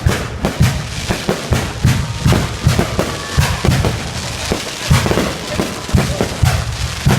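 Fireworks display going off in a rapid, uneven run of bangs and deep booms, several a second, with a few faint whistling glides among them.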